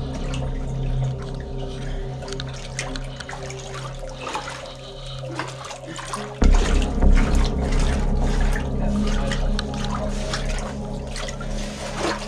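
Feet wading through water in a flooded mine tunnel, with irregular splashing and sloshing at each step, over steady droning background music that shifts and grows louder about halfway through.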